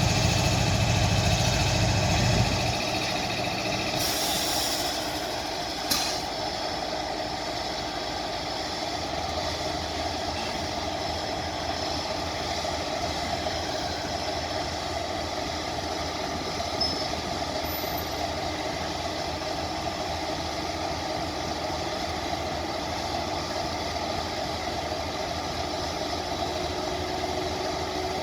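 Train sound: a heavy low rumble for the first few seconds drops away, and a diesel locomotive engine then runs steadily with a constant hum. There is a brief hiss about four seconds in.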